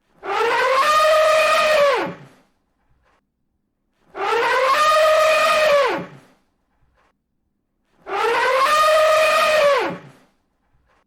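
Elephant trumpeting: the same two-second call three times, about four seconds apart, each holding its pitch and then dropping away at the end.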